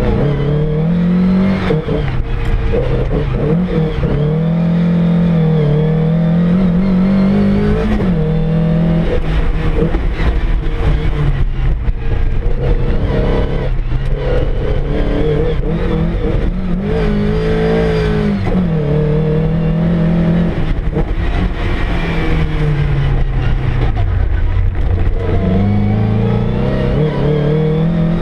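Car engine heard from inside the cabin, revving hard and dropping back again and again as the car is driven hard through a course, with the engine note sweeping up and down throughout.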